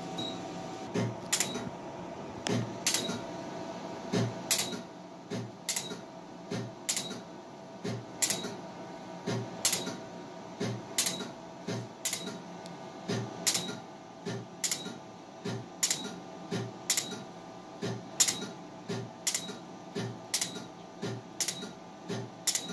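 Laser hair removal handpiece pulsing along the chin: a sharp click with each shot, a little under two a second, sometimes in quick pairs, over a steady faint hum.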